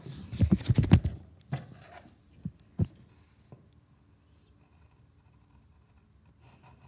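A cluster of loud knocks and rubbing in the first second and a few single knocks, from handling things on a desk. Then faint pencil scratching on paper as a small propeller is shaded in.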